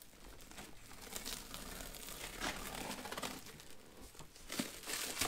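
Parcel wrapping being slit open with a knife: packing tape and paper crinkling and tearing in irregular bursts as the package is cut and handled.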